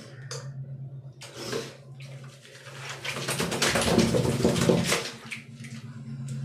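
Wet golden retriever shaking water off its coat: a short spatter about a second in, then a loud, rapid flapping and spraying for about two seconds from around three seconds in.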